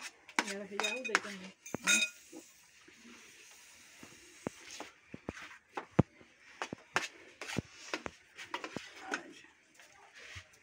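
Cutlery clinking and scraping on plates and a metal cooking pot while people eat, many separate sharp clicks scattered irregularly.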